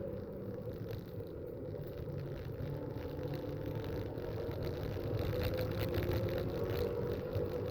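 Racing car engines running on the circuit: a steady engine drone that grows a little louder about five seconds in.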